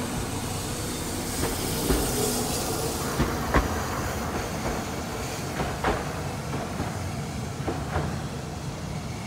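Hiroshima Electric Railway 800-series tram, a Mitsubishi armature-chopper-controlled streetcar, pulling away along street track. Its wheels knock sharply on the rails several times as it moves off, the loudest about three and a half seconds in.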